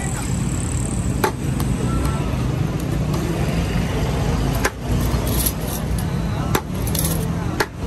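A metal serving spatula knocking and scraping against a large steel tray of Kabuli pulao and a plate: four short sharp clinks. Steady busy-street noise with background voices runs underneath.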